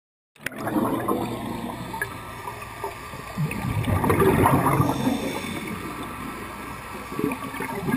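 Scuba diver's exhaled air bubbles gurgling up from the regulator, recorded underwater. The sound cuts in abruptly just after the start and swells louder about halfway through and again near the end.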